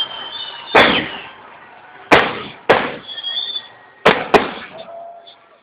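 Aerial firework shells bursting: five sharp bangs, the last two in quick succession, each trailing off afterwards.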